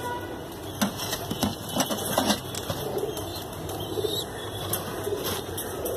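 Domestic pigeons in a loft cooing softly, with several sharp clicks and knocks.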